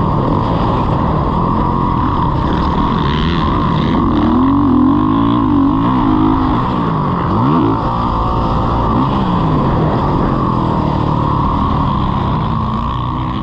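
Motocross dirt bike engine running hard, its revs rising and falling several times in the middle as the throttle is worked, and easing off slightly near the end.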